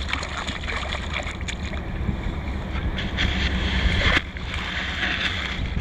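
Moving river water rushing and splashing around a wading angler's legs, with wind rumbling on the microphone.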